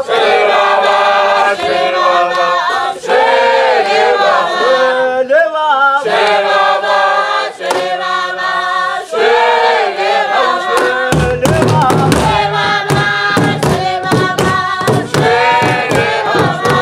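A group of voices singing together in traditional Shangaan style, in phrases a couple of seconds long with short breaks between them. About two-thirds of the way through, a fast beat of drums joins the singing.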